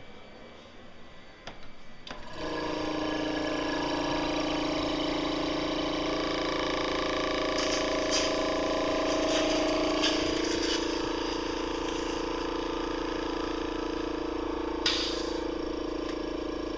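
Cough assist machine's blower starts about two seconds in and runs with a steady hum, its tone changing a little about halfway through. A few short clicks sound over it, the loudest near the end.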